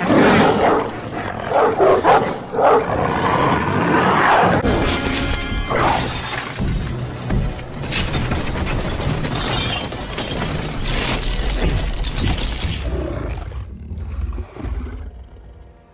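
Movie soundtrack: a monstrous dog snarling and growling over dramatic film music for the first few seconds, then loud, dense score with several crashing impacts, fading near the end.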